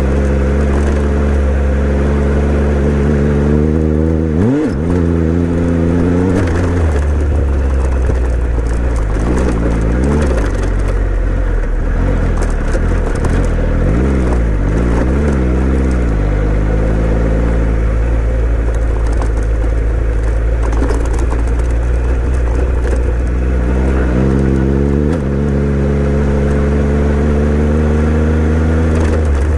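Motorcycle engine running under way, mostly at a steady pitch, with the revs dipping and climbing again several times as the throttle is worked.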